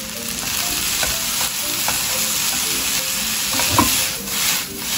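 Cabbage and bell peppers sizzling in hot oil in a frying pan as they are stir-fried. A few knocks from the pan and vegetables come near the end as the pan is tossed, and the sizzle briefly dips.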